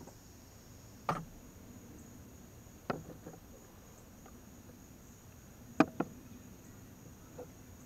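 Four sharp knocks as a PVC pipe-and-fitting assembly is handled and bumped on the deck rail while a freshly cemented joint is twisted straight. The loudest is a close pair of knocks about six seconds in. Crickets chirp steadily in the background.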